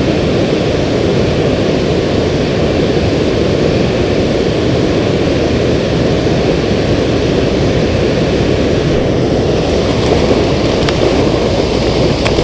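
Steady rush of water pouring through a river spillway and rapids, with a couple of faint ticks near the end.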